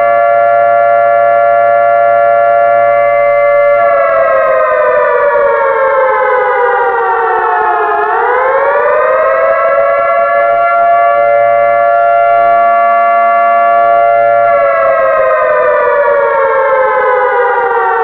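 Civil defense siren sounding the attack warning: a loud held tone that slides down in pitch from about four seconds in, swings back up about eight seconds in, holds steady, then falls again near the end.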